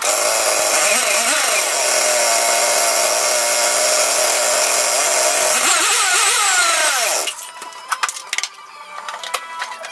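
Loud whirring of a motor, with the pitch swinging near the start and falling away over about a second and a half before it stops about seven seconds in. A few light clicks follow.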